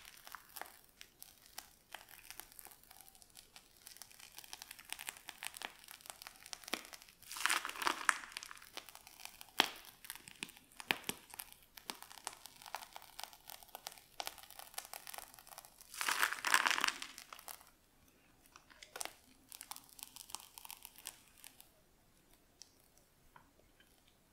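Plastic piping bag crinkling and crackling as it is squeezed, with the whipped cream filling squishing out. The sound comes in two louder stretches, about a third and two-thirds of the way through, and dies down near the end.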